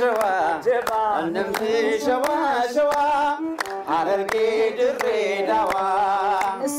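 Voices singing a song together, with steady hand clapping keeping the beat.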